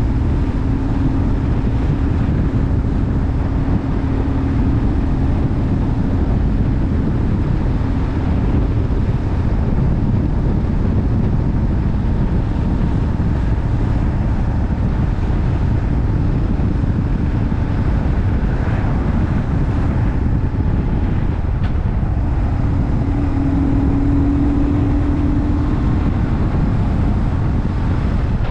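BMW R 1150R's boxer twin engine running at a steady cruise while riding, mixed with heavy wind rush on the camera microphone. The engine note holds an even pitch and comes through more strongly for a few seconds near the end.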